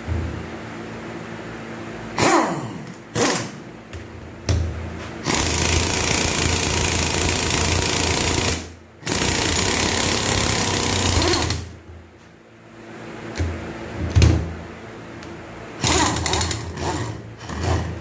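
Pneumatic impact wrench hammering in two long bursts, one of about three seconds and one of about two, with sharp metal clanks of tools and parts before and after.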